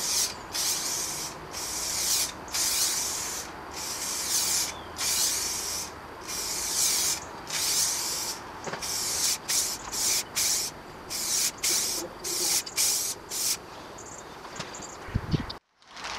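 Aerosol rattle can of cheap 1K clear lacquer spraying in a long series of short hissing blasts, longer at first, then shorter and quicker, stopping a couple of seconds before the end. A brief knock follows.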